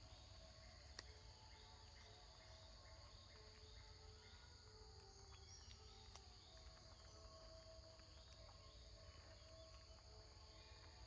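Near silence: a faint, steady insect chorus with a low rumble underneath and a few soft clicks.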